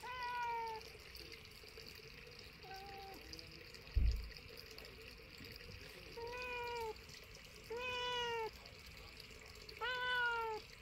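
Young tabby cat meowing five times, each meow under a second, one short and quieter than the rest. A single low thump about four seconds in is the loudest sound.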